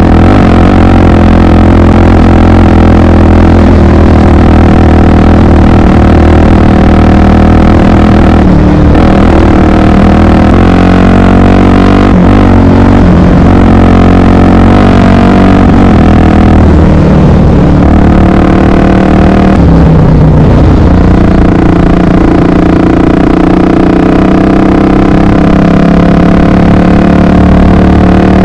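Honda XR 250 Tornado's single-cylinder four-stroke engine running under way, loud throughout. Its pitch falls and climbs again several times as the throttle changes.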